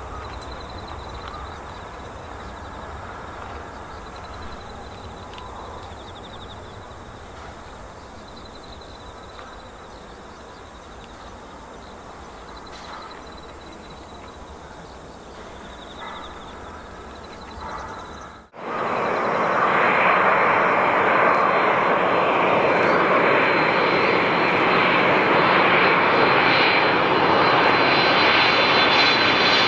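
A twin-engine jet airliner taking off and climbing away in the distance, a steady low jet rumble slowly fading. After a sudden cut about two-thirds through, a Japan Airlines Boeing 767 on final approach, landing gear down, comes in low; its jet engines are much louder, a steady roar with a faint high whine.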